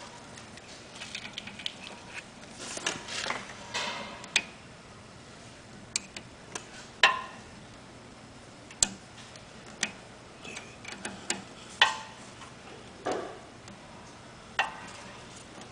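Metal hand tools and fittings clicking and clinking: open-end wrenches knocking against the metal frame and brass pump fittings while fittings are threaded back on. Irregular sharp clicks with short bursts of rattling, the loudest knocks about seven, nine and twelve seconds in.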